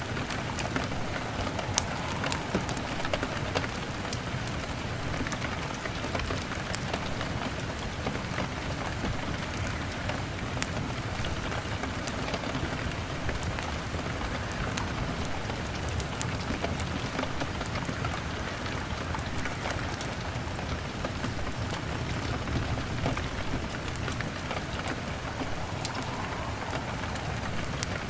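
Steady rain beating on a window, mixed with the crackle of a log fire, with sharp ticks scattered throughout.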